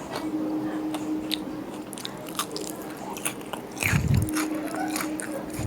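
Someone biting into and chewing crunchy coated chicken: a string of short, crisp crunches.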